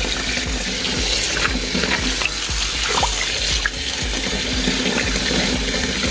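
Kitchen tap running into a sink full of water while a hand dunks and swishes dried corn husks under the surface, with small splashes throughout.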